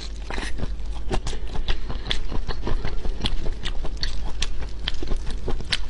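Close-miked eating sounds of marinated raw prawns: wet sucking, chewing and shell clicks, several sharp irregular clicks a second over a steady low hum.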